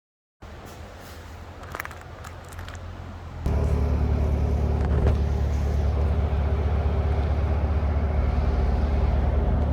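A motor running with a steady low rumble that comes in suddenly about three and a half seconds in, after a quieter stretch with a few clicks.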